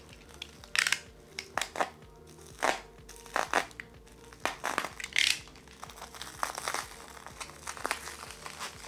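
Thin clear plastic wrap crinkling in irregular bursts of sharp crackles as it is worked and pulled away from a small plant pot.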